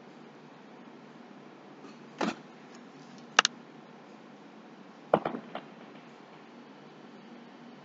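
A few short sharp clicks or knocks over a faint steady hiss: one about two seconds in, a louder, sharper one a little later, and a quick run of three or four about five seconds in.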